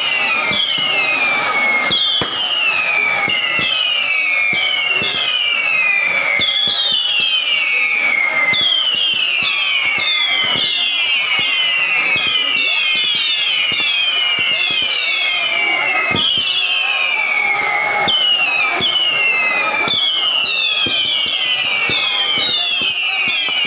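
Whistling fireworks rockets going up one after another, roughly one a second, each a high whistle falling in pitch and overlapping the next, with scattered pops and crackles.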